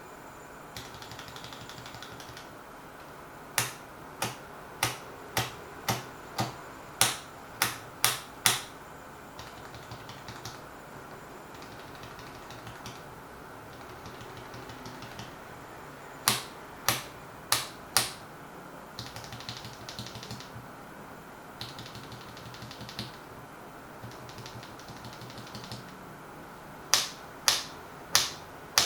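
Mechanical keyboard fitted with Gateron Ink switches being typed on. Runs of sharp, loud keystrokes come about two a second, with softer stretches of lighter typing between them.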